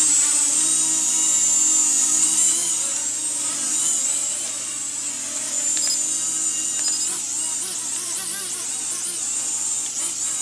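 Small toy quadcopter drone's electric motors and propellers whining at a high pitch, the pitch wavering up and down as it flies and hovers.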